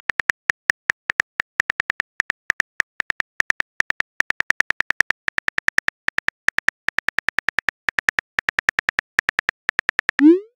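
Texting-app keyboard typing clicks, a steady run of about five short ticks a second as a message is typed letter by letter. Near the end comes a quick rising swoosh: the message-sent sound.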